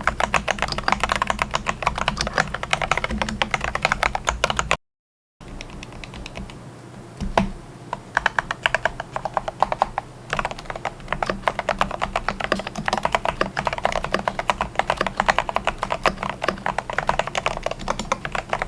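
Rapid typing on a keyboard, a dense run of key clicks and bottoming-out strokes. Just under five seconds in the sound cuts to dead silence for about half a second, then the typing picks up again.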